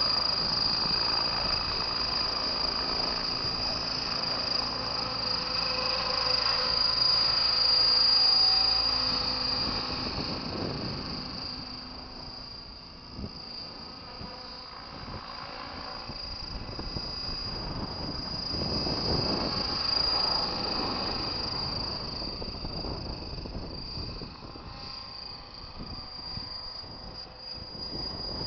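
Radio-controlled helicopter in flight: its motor and rotor make a steady high whine, loud while it hovers close and fading after about ten seconds as it climbs away. Gusts of wind rumble on the microphone.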